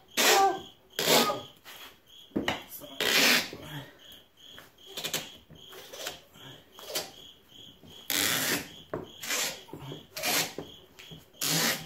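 Stuck gear-shift knob on a Honda Harmony riding mower being twisted and worked along its metal lever, making a series of short rasping scrapes at uneven intervals, loudest about eight seconds in. The knob is a tight slide-on fit with no threads.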